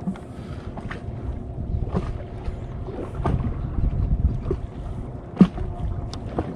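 Small fishing boat at sea: wind rumbling on the microphone and water moving against the hull, under a faint steady hum. Scattered light knocks, with one sharp, loud knock about five and a half seconds in.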